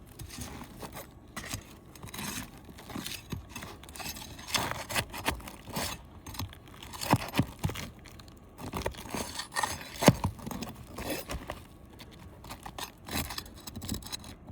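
Pry bar scraping and clicking against roof shingles and rusted roofing nails that won't come out, in irregular scrapes and metal knocks, the sharpest about ten seconds in.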